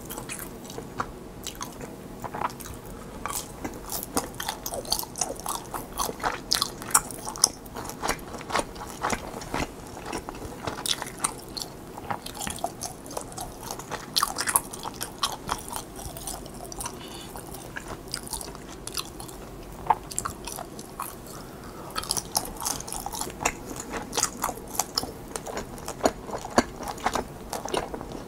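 A person chewing soft, chewy mozzarella-filled rice cakes (cheese tteok): a steady run of short, irregular mouth clicks and smacks.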